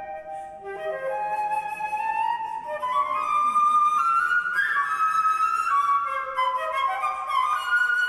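Solo concert flute playing a line of held notes that climbs step by step after a brief break near the start, growing louder about halfway through.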